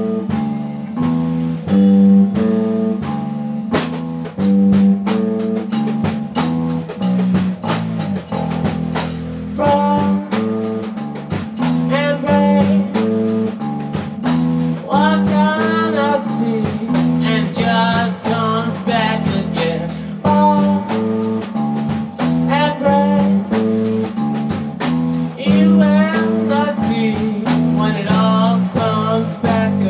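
A small band playing a blues-rock instrumental break live on a Gretsch drum kit, bass guitar and electric guitar, with a repeating riff underneath. A lead line of wavering, bent notes comes in around the middle and again near the end.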